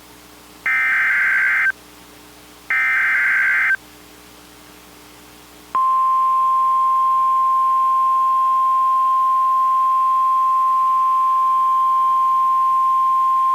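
NOAA Weather Radio emergency alert (EAS/SAME) signal. Two harsh, raspy digital header bursts sound about a second long and a second apart. About two seconds after the second burst, the steady single-pitch warning alarm tone starts and holds, announcing a new warning.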